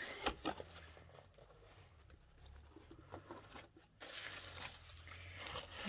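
Packaging being opened by hand: a few light clicks and taps, then about four seconds in a continuous rustle of tearing and crinkling.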